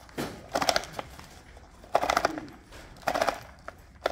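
Stihl string trimmer head being turned by hand to wind in new line, its ratchet giving three bursts of rapid clicking about a second apart.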